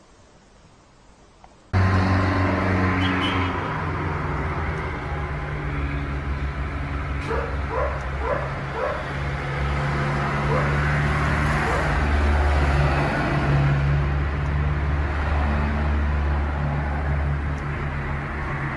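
Steady low rumble of road traffic, loud after a quiet first two seconds, with a dog barking several times about seven to nine seconds in.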